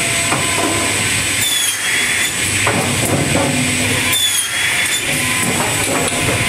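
Delrieu SL machine and board stacker running with a steady hum as it moves and stacks cut boards. Two short mechanical strokes, about a second and a half in and again just past four seconds, each carry a brief falling whine and a short hiss.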